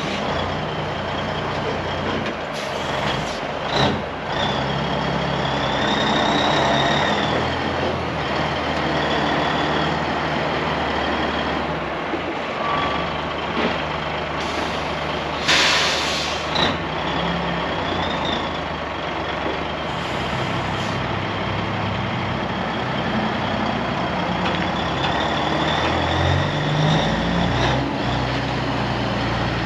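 Cabover semi-truck's diesel engine running under way, with a steady high whine over it. A short burst of hiss comes about halfway through, and the engine note rises near the end.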